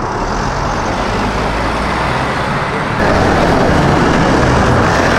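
Road traffic: motor vehicle engines running with tyre noise, getting louder about three seconds in as a vehicle comes close.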